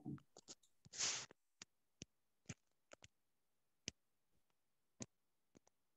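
Near silence broken by a handful of sharp, irregularly spaced computer mouse clicks, plus one short burst of noise about a second in.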